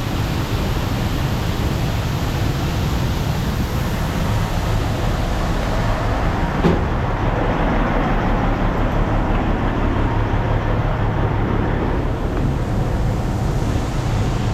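Heavy farm machinery engine running steadily under a dense rushing noise, with a brief knock and a shift in the sound about halfway through.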